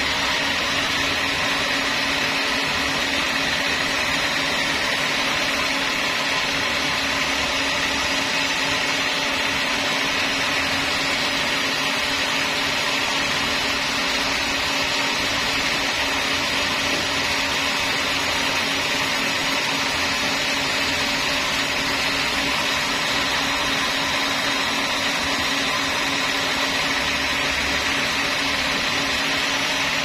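Vertical band sawmill running steadily without load while a log is positioned on its carriage: a constant machine whine with a low steady hum and no change in pitch.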